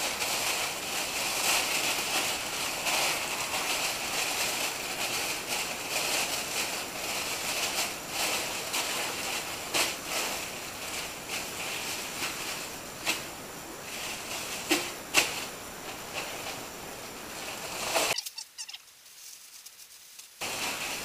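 Thin plastic bags rustling and crinkling as they are handled at a counter, with a few sharp crackles; the sound drops out almost completely for about two seconds near the end.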